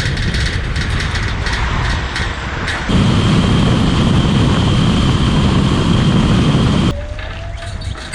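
Steady vehicle running noise, mostly low. It changes abruptly about three seconds in and again near the end, and a steady high whine runs through the middle stretch.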